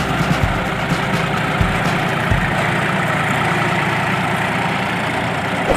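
John Deere 5204 tractor's diesel engine running steadily while pulling a rotary tiller through the soil.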